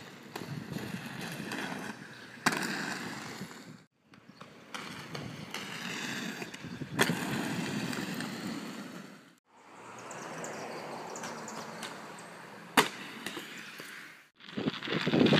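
Skate wheels rolling, with one sharp clack in each of several stretches that break off abruptly, about 2.5, 7 and 13 seconds in.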